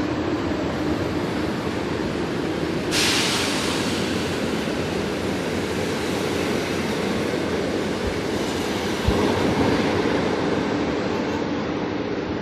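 Intercity passenger train rolling in alongside a station platform, a steady rumble of coaches and wheels under a held hum. About three seconds in a sudden hiss starts and fades over several seconds, and a single knock comes about nine seconds in.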